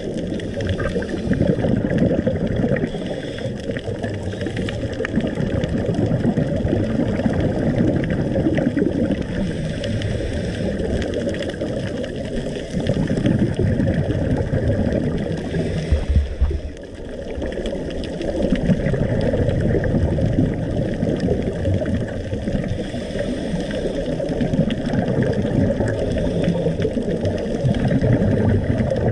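Muffled underwater rumble and gurgle of moving water and bubbles through an underwater camera housing, swelling and easing every few seconds, with a brief knock about halfway through.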